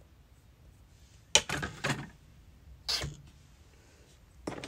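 Small hard objects being handled and set down on a table: a sharp clack about a second and a half in with a short rattle after it, another clatter near the three-second mark, and more clattering starting just before the end.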